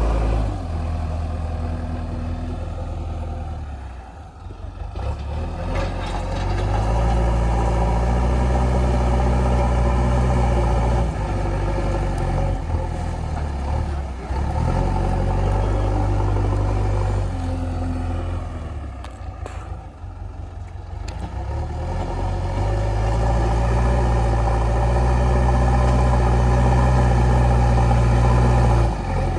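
JCB 3DX backhoe loader's diesel engine working under hydraulic load, its revs rising and falling in long swells. It eases off twice, a few seconds in and again about two-thirds through, then builds back up to full working revs.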